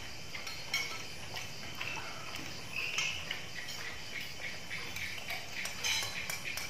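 Spoons and forks clicking lightly against ceramic plates as several people eat, with a steady chirping of crickets behind.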